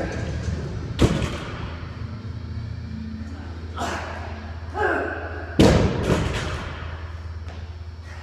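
Loaded barbell with bumper plates dropped onto the floor twice, about four and a half seconds apart, each a heavy thud with a short rattle of the plates.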